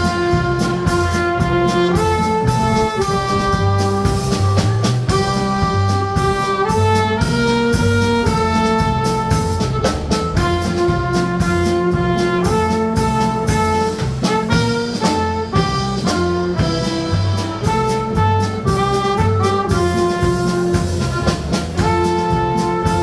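Live polka band playing a polka, horns carrying the melody over an alternating oom-pah bass line and steady beat.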